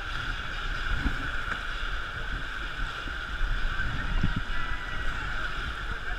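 Rushing river water through rapids, a steady hiss, with wind rumbling on the microphone.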